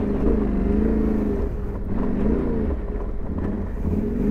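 Yamaha Ténéré 700 adventure motorcycle's engine under load on a rocky off-road climb, its pitch rising and falling repeatedly as the throttle is worked.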